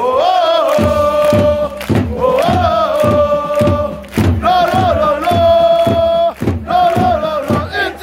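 Football supporters chanting a sung chant in unison, with a drum beating about twice a second from about a second in.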